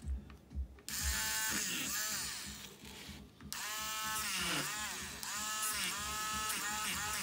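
Handheld electric eraser motor whining as its spinning rubber tip is worked against paper, in short runs with brief pauses. Its pitch dips and recovers again and again as the tip is pressed in and eased off.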